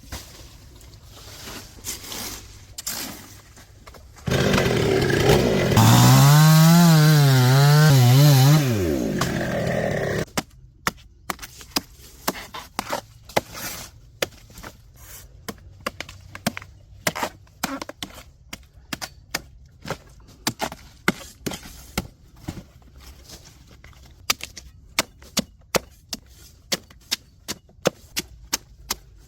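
Chainsaw cutting into a young coconut palm trunk for about six seconds, its engine pitch rising and falling as it bites, then stopping. A long run of sharp chopping strikes into the palm wood follows, roughly one or two a second.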